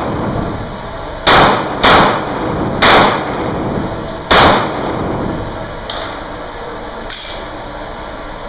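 Four handgun shots fired in about three seconds, the third a little after the second and the fourth after a longer pause, each echoing briefly off the walls of an indoor range. Two much fainter clicks follow near the end.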